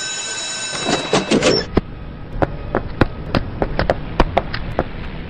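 A steady electric bell rings and stops about a second in. Then come sharp knocks, two or three a second and unevenly spaced, over a low hum.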